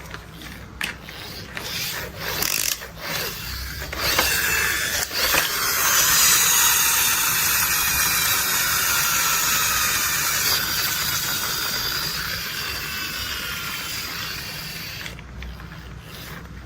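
Plastic toy construction vehicle mechanism: a few sharp ratchety clicks, then a gear-driven whirring about four seconds in. The whirring's pitch slides slowly as it runs, and it fades off near the end.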